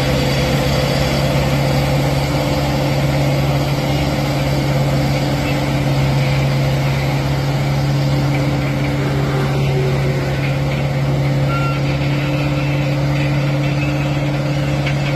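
Heavy truck's diesel engine running steadily at an unchanging speed.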